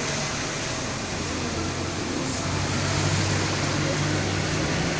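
Steady low hum with a constant hiss, like a fan or air conditioner running.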